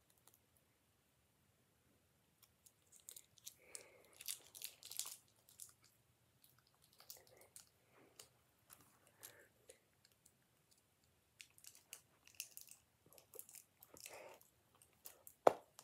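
Small plastic Lego pieces being handled and pressed together: scattered soft clicks and rustling, with one sharp click near the end.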